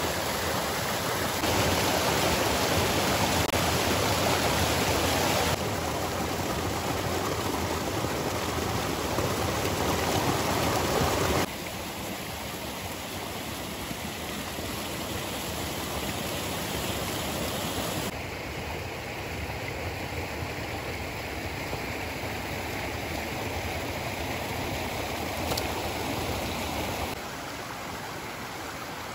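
Steady rush of running stream water. The level jumps abruptly up and down several times.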